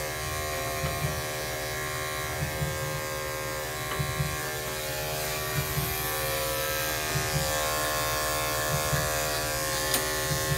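Corded electric pet clippers buzzing steadily as they clip fur on a dog's leg. Faint low bass thumping from a neighbour's music comes through the wall underneath.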